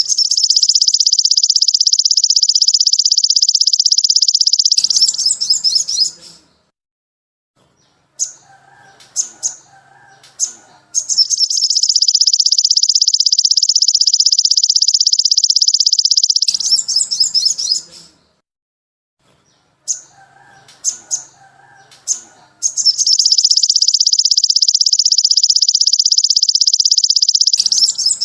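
Recorded songbird masteran: a long, fast, high buzzing trill of about five seconds, then a short burst of quick chirps. The same phrase repeats three times, about every eleven seconds, with a brief silent gap between repeats, as in a looped tutor recording.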